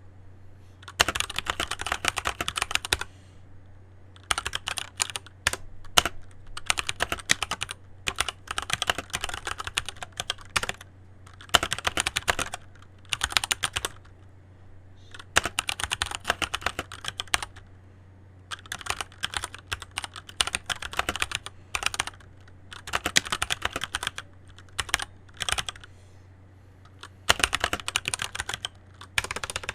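Keychron C1 mechanical keyboard being typed on in runs of fast keystrokes, each run a second or two long with short pauses between.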